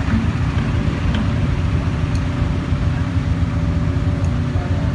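Heavy diesel machinery engine running steadily, a low, even rumble with a constant hum.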